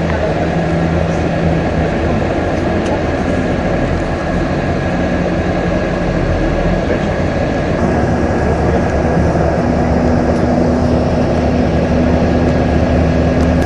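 Engine and road noise heard from inside a moving vehicle: a steady drone whose engine note changes pitch about halfway through.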